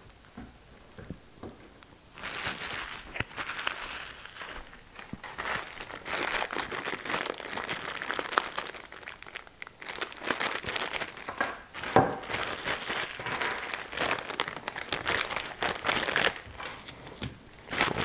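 Clear plastic packaging being handled and crumpled, crinkling and crackling irregularly; it starts about two seconds in, after a quiet moment.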